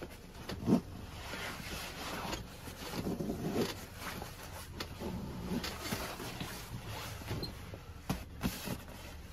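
Nylon fabric of an Army compression stuff sack rustling and its webbing straps rubbing as the packed sack is cinched and handled, with a short thump just under a second in.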